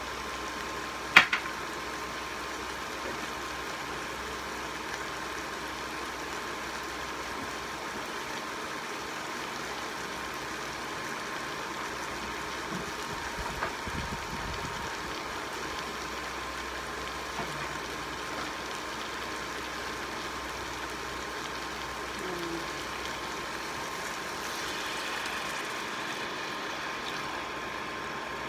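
Chicken, onion and spice mixture cooking in a large stainless steel pot, a steady sizzle, with one sharp knock about a second in. Near the end, water is poured into the pot.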